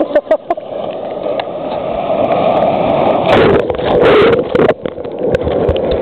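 Surf rushing and churning around a waterproof compact camera held at the waterline, its microphone going under and out of the water. A louder rushing surge starts about three seconds in and lasts over a second.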